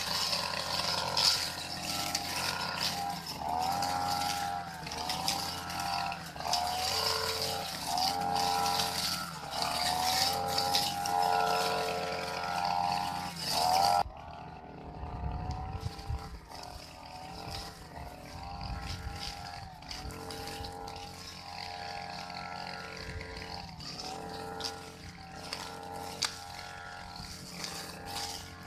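Backpack brush cutter with a cutting blade working through grass, its small engine revving up and dropping back about once a second as the blade swings. About halfway through the sound cuts to a quieter, more distant engine note that keeps rising and falling.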